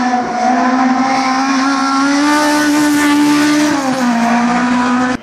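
Saloon race car engine revving hard as it accelerates, its pitch climbing steadily. The pitch drops at a gear change about four seconds in, then pulls up again before the sound cuts off suddenly.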